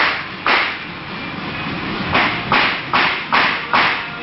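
Gravity-feed paint spray gun hissing in seven short bursts, the trigger pulled for a quick pass each time while spraying paint: two bursts near the start, then five in a quick, even series.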